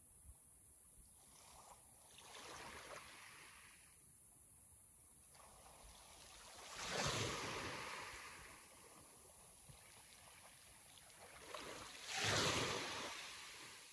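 Sea waves breaking and washing in: a smaller wave about two seconds in, then two larger ones about five seconds apart, each swelling quickly and fading out over a couple of seconds.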